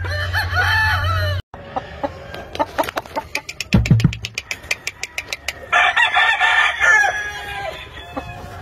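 Game roosters crowing: one crow ends about a second in, and a second, full crow comes about six seconds in. Between them there is a run of short clucks and a thump at about four seconds.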